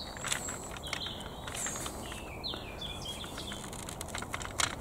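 Small birds chirping several times over a low outdoor background, with light clicks of metal side cutters working against the plastic drive hub of a toy excavator's track frame; a sharper click near the end.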